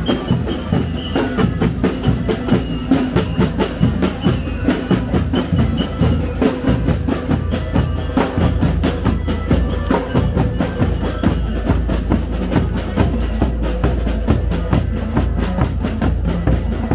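Marching drum band playing: quick, steady snare drum strokes over bass drum beats.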